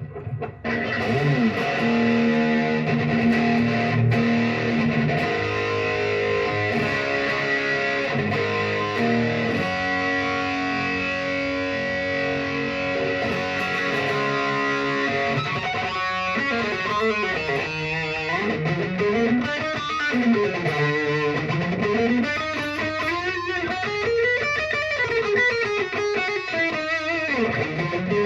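Electric guitar played through a GBS AFD Distortion Custom pedal, a Marshall-style 'AFD' distortion, with the gain set nearly to maximum, giving a heavily distorted, saturated tone. Sustained chords and riffs fill the first half; from about halfway the notes slide up and down in pitch in repeated sweeps.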